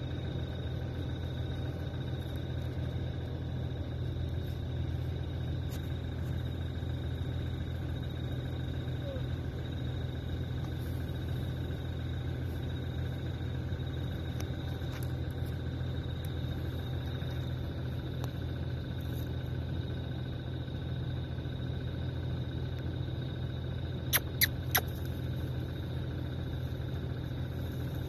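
Vehicle engine idling steadily, a low even hum. Three sharp clicks come in quick succession near the end.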